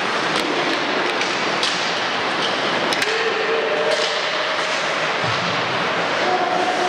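Ice hockey game in a rink: a steady hum of crowd and arena noise, with sharp clacks of sticks and puck scattered through it.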